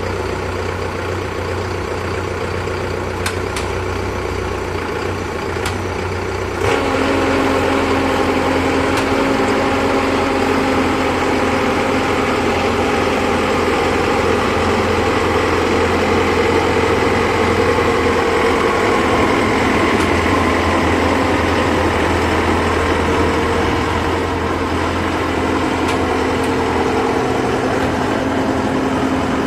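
Heavy engine running steadily, turning louder with a new steady higher note from about seven seconds in, which then holds.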